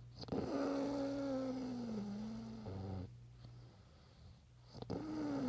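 A person snoring: one long snore that starts suddenly and slides slowly lower in pitch for about three seconds, then, after a short pause, a second snore starting near the end.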